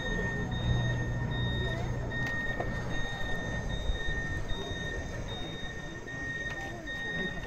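Car-body traverser's warning beeper sounding a steady run of high beeps, each about half a second long, while the traverser is in motion. A low drive hum underneath fades out about two seconds in, over crowd murmur.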